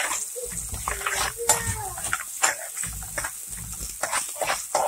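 Metal spatula scraping and tapping against a nonstick frying pan as chopped onions and green chillies are stirred in oil, with a few sharp clicks. A short whining, voice-like sound falls in pitch about a second in.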